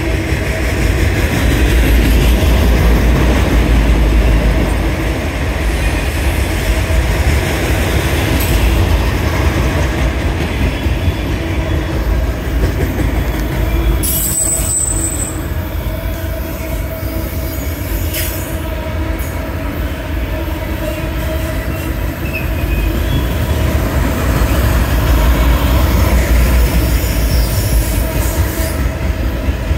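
A freight train's autorack cars rolling past: a steady loud rumble of steel wheels on the rails, swelling louder twice.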